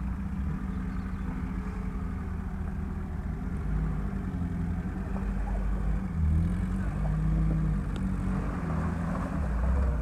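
Lifted Lada Niva's engine running at low revs with small throttle changes as it crawls through a flooded, muddy rut, tyres churning through the water. It gets louder about six seconds in.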